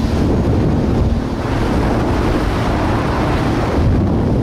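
Wind buffeting the microphone on a moving jet ski, with choppy water rushing past and the jet ski's engine running underneath as a steady rumble.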